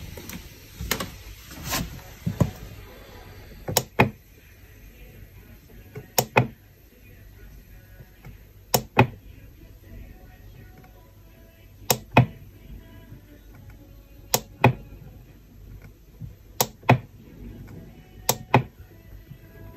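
Button on a Tanita body-composition bathroom scale clicking as it is pressed and let go: a pair of sharp clicks every two to three seconds, seven times, as the display is stepped through. In the first couple of seconds there are a few duller knocks.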